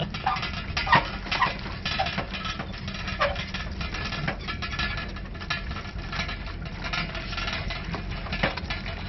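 Small motor vehicle's engine running steadily at low speed, with rattles and a few sharp knocks from the body and fittings as it rolls over uneven dirt ground; the loudest knock comes about a second in.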